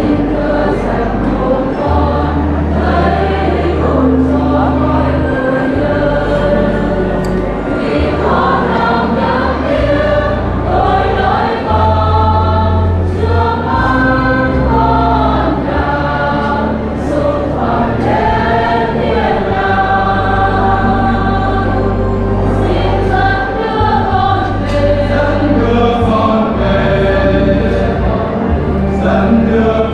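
A choir singing a hymn over held low bass notes, continuously and at a steady loudness.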